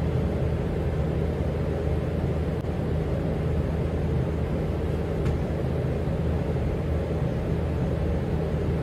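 Steady low mechanical hum and rumble, with a faint click about five seconds in.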